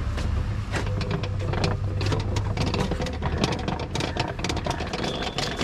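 Row of large metal prayer wheels being spun by hand in turn, a low rumble with many irregular clicks and knocks as the wheels turn on their pivots.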